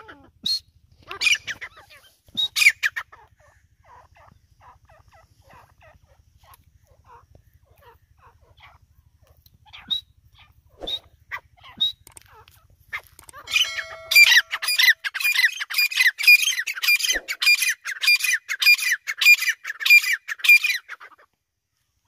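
Grey francolin (teetar) calling: a few sharp calls at first, scattered short notes midway, then a loud, fast run of repeated calls for about seven seconds near the end.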